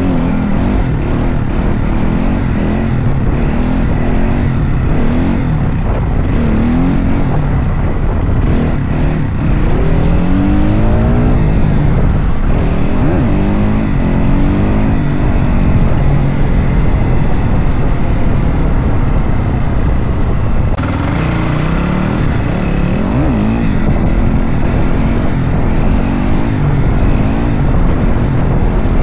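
Kawasaki KX dirt bike engine revving up and down as the rider holds wheelies, its pitch climbing and dropping several times over a steady din of engine and road noise.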